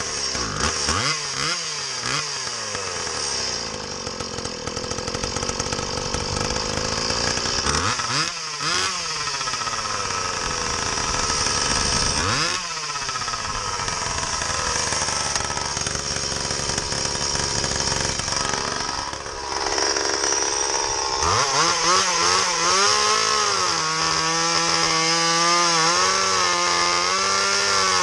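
Stihl MS170 30cc two-stroke chainsaw, running with a homemade exhaust pipe and no air filter, revving up and down several times, then held at a steady high speed whose pitch wavers slightly near the end while the carburettor is being tuned.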